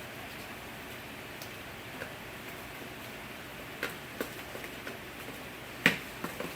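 Scattered light clicks and crackles as a plastic door vapor barrier is slowly peeled off its sticky adhesive, a few in the second half and the loudest near the end.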